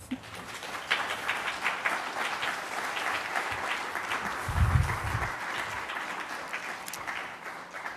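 Audience applauding, a dense patter of many hands that fades out near the end, with a dull low thump about halfway through.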